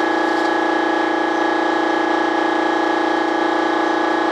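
Steady drone of a running machine, one constant pitch with a high whine above it, holding an even level.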